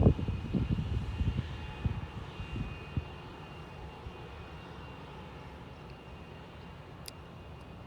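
Airplane engine noise: a loud, gusty low rumble with a faint high whine, fading away over the first few seconds to a faint steady hiss.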